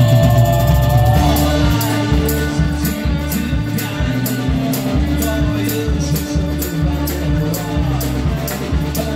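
A live band playing amplified music on an outdoor stage. About a second in the song kicks into a steady beat, with a crisp high percussion stroke about two to three times a second over a held note.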